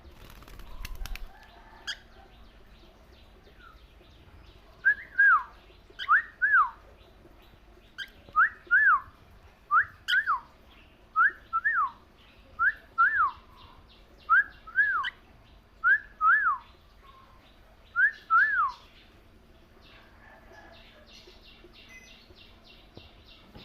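Cockatiel whistling a two-note call over and over, about nine pairs roughly a second and a half apart, each note sliding down in pitch.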